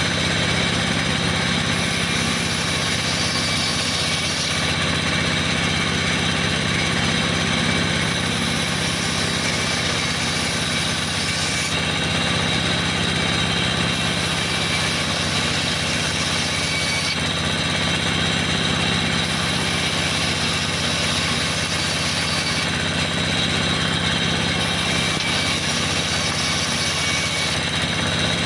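Sawmill band saw running steadily under a low motor hum, its blade cutting through wooden boards, with the high cutting hiss growing brighter in stretches of a few seconds as boards are fed through.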